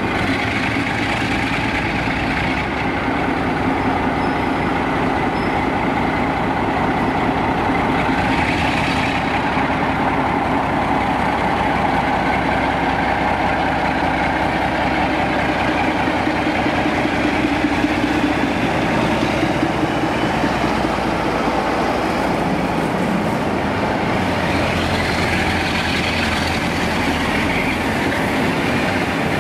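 Class 47 diesel-electric locomotive's Sulzer twelve-cylinder engine running as it draws slowly past, followed by the steady rumble of its coaches rolling by.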